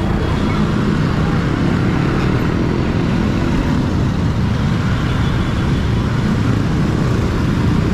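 Many small motorcycles and scooters running at low speed close around the rider's own motorcycle, a steady, dense mix of engines.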